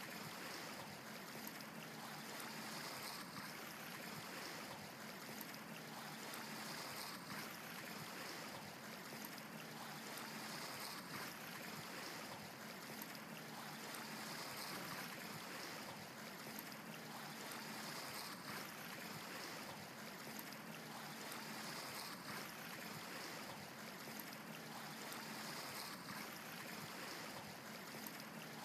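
Steady running-water sound with slow gentle swells, like an aquarium's flowing water.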